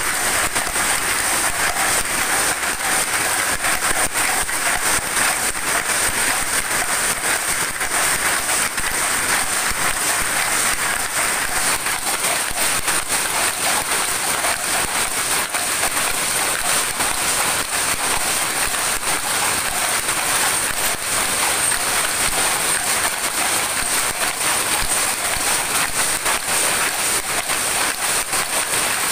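Power loom running steadily, a dense, rapid clatter of its beating mechanism over a steady high whine.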